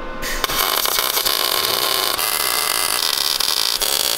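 Wire-feed (MIG) welder arc crackling and sizzling steadily as it lays a weld on quarter-inch flat stock under the engine plate.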